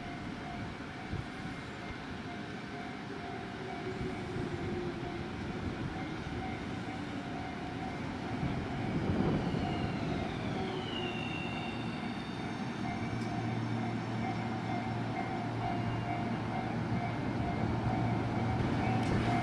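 Tobu Tojo Line electric train running, its motor whine gliding down in pitch about ten seconds in. After that a steady low hum and several steady high tones sound alongside the rumble.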